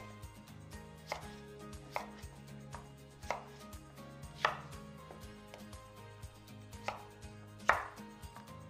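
Chef's knife cutting red potatoes into quarters on a wooden cutting board: separate knocks of the blade through the potato onto the board, roughly one a second, the loudest near the end.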